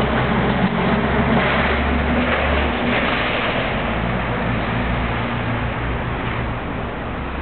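Car on the road: steady tyre and road noise over a low engine hum, easing slightly toward the end.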